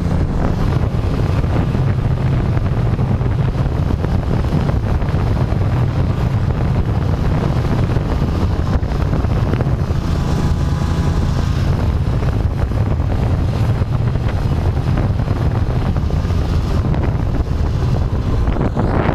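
Snowmobile engine running steadily as the machine travels over the snow, heard from on board.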